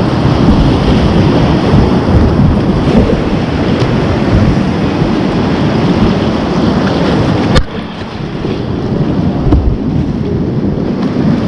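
Whitewater rapids rushing and churning close around a kayak, loud and steady. About two-thirds through there is a single sharp click, and the rush drops to a quieter level.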